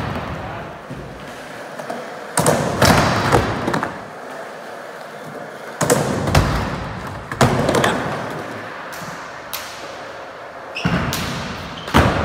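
Skateboard wheels rolling on a concrete and plywood skatepark, with hard clacks of the board from tricks and landings a handful of times, each ringing on briefly in the large hall.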